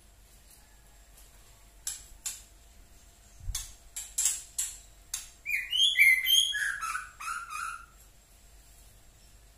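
Young white-rumped shama in spotted 'trotol' plumage giving its harsh 'tretekan' chatter. First come several sharp clicks, one with a low knock, then about six to eight seconds in a burst of rasping, falling notes.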